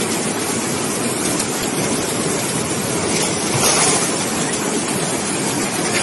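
Fast-flowing flash-flood water rushing down a street, a steady rushing noise that swells briefly a little past three and a half seconds in.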